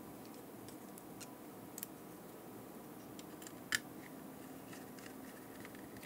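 Faint scattered clicks and taps of a small precision screwdriver and tiny screws against the plastic case and circuit board of a GPS unit being screwed back together, the sharpest click a little past the middle, over a faint steady hum.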